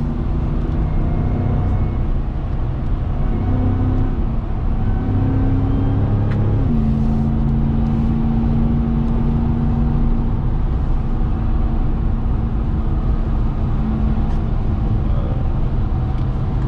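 2021 RAM 1500 TRX's supercharged 6.2-litre HEMI V8 running steadily while driving, over a constant rush of tyre and road noise. The engine note steps down in pitch about six and a half seconds in, then holds steady.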